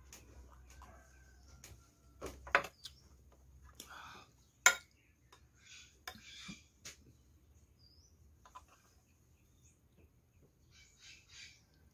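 Cutlery clinking and scraping against a plate during a meal, in scattered sharp clicks, the loudest about two and a half and four and a half seconds in, with softer shuffling noises between.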